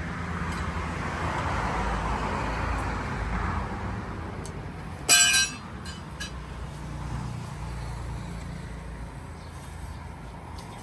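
Road traffic passing, with a steady low engine rumble and a short horn beep about five seconds in.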